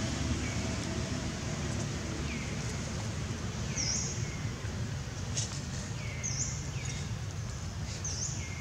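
A bird calling repeatedly, short falling whistled notes about every two seconds, over a steady low background rumble.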